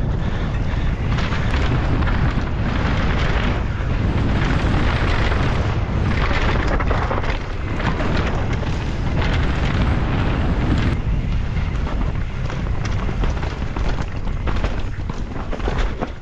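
Wind buffeting the microphone at speed over the rattle of a mountain bike racing down a rough dirt trail, tyres and bike clattering over roots, rocks and gravel.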